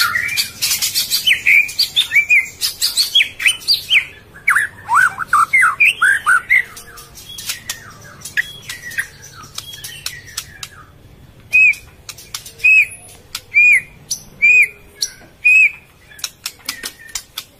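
Murai birds chirping: quick sweeping calls mixed with sharp clicks, then a run of short, evenly spaced chirps about one a second in the second half.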